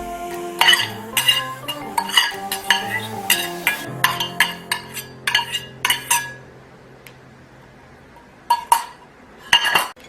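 Dishes and metal utensils clinking: a quick run of sharp clinks, then a few scattered ones. Soft background music plays under the first part and fades about six seconds in.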